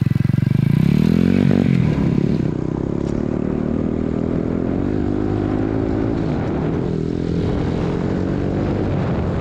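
Honda Z50 mini bike's small single-cylinder four-stroke engine revving up as it pulls away, then running steadily under throttle with small rises and falls in pitch as the bike is ridden along a dirt trail.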